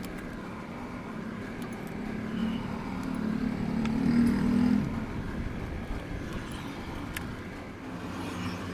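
A motor vehicle engine running. It grows louder from about two seconds in to a peak at around four and a half seconds, then drops back, with a few sharp clicks.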